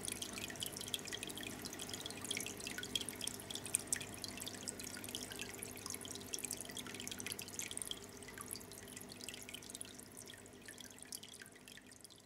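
Faint aquarium water sounds: many small, irregular drips and splashes at the water's surface over a low steady hum, growing fainter near the end.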